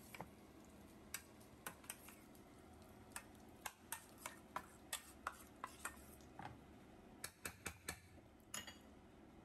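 Hot frying oil in a stainless steel pan spitting and popping. Scattered sharp pops come irregularly, some in quick clusters, over a faint background.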